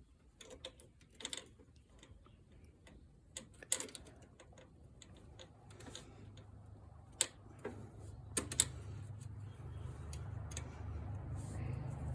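Scattered light metallic clicks and ticks from hand tools and brake parts being handled while the rear brake cable and springs are fitted. A low rumble builds from about halfway.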